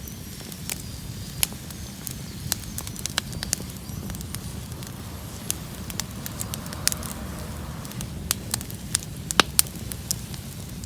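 Bonfire burning, with irregular sharp crackles and pops over a steady low rumble of the flames.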